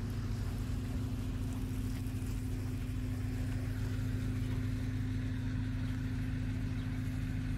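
Boat engine running steadily on the river, a low, even drone.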